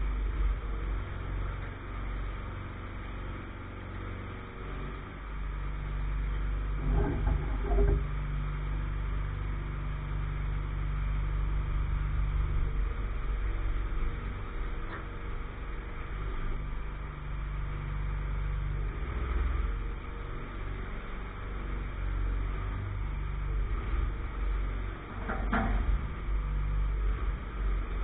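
An engine running steadily with a low hum, with a few brief knocks about seven seconds in and again near the end.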